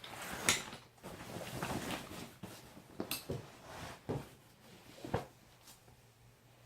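Handling noise: several irregular knocks and clicks with some rustling and scraping.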